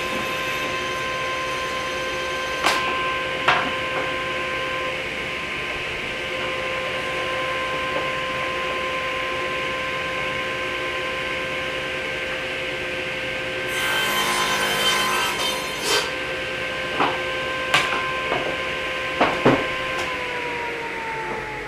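Table saw running with a steady whine, trimming a breadboard end flush: the blade cuts wood about 14 seconds in, with scattered knocks throughout. About 20 seconds in the saw is switched off and its pitch falls as the blade spins down.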